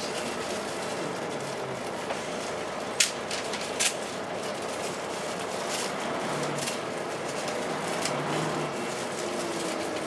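Volvo B10BLE single-decker bus heard from inside the saloon while on the move: steady engine and road noise, with two sharp knocks about three and four seconds in. A faint steady whine comes back near the end.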